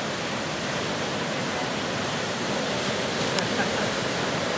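Steady rushing wash of ocean surf, with one faint click about three seconds in.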